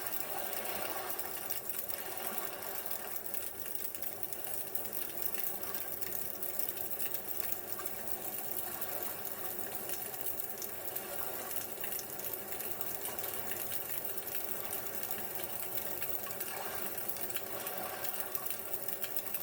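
Campfire crackling steadily: many small pops and ticks over a continuous hiss.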